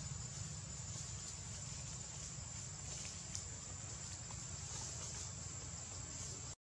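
Forest ambience: a steady high-pitched insect drone over a low rumble, with a couple of faint clicks. The sound cuts out briefly near the end.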